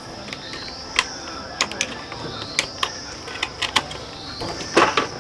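Irregular small metal clicks and knocks from the throttle grip and cable fittings on a motorbike handlebar being worked by hand while the throttle cable is replaced, with a steady high-pitched buzz that swells and fades in the background.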